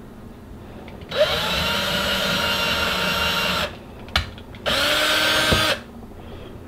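Cordless drill with a small twist bit boring pilot holes for cup hooks into a pine board. It runs twice: first for about two and a half seconds starting a second in, then for about a second. Each run opens with a whine rising as the motor spins up, and a short knock falls between the two runs.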